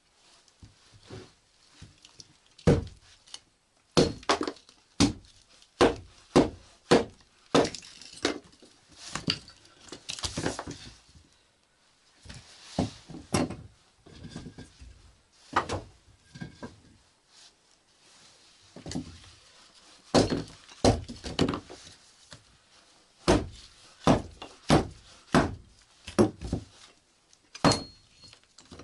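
Irregular series of sharp knocks and thuds, dozens of them, some in quick runs and some with pauses between.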